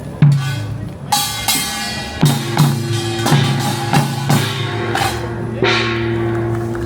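Music led by loud, deep drum strikes at an uneven beat, with a held steady tone coming in a few seconds in.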